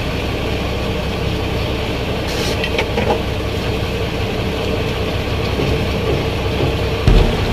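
Boat engine running steadily at sea, with wind and water noise over it; a brief knock a little under halfway through and a low thump near the end.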